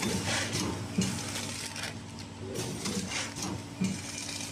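A sealed clear plastic bag of puffed potato chips crinkling as it is picked up and handled, in irregular crackles, over a steady low hum.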